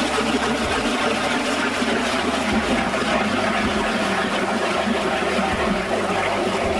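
Power ice auger running steadily as it bores through lake ice.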